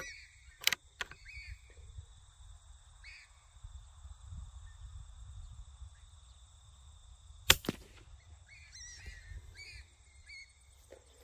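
A single .22 rifle shot about seven and a half seconds in: one sharp crack with a smaller click just after, the shot that drops a rabbit. Small clicks come in the first second, and short bird chirps sound over a low wind rumble.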